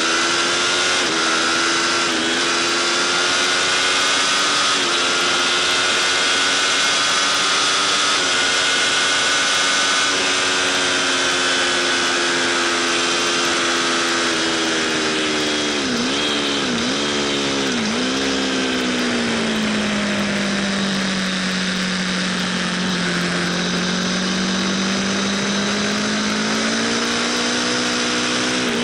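Aprilia RSV4 Factory's V4 engine at racing revs, heard from the rider's position: it pulls hard up through the gears in the first half, three quick dips in pitch as it changes down under braking, then runs lower and steadier through a corner before picking up again near the end. Wind noise hisses over the engine throughout.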